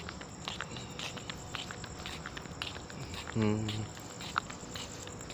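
Crickets chirping at night with faint, irregular ticking steps mixed in, and a brief low voice sound about three and a half seconds in.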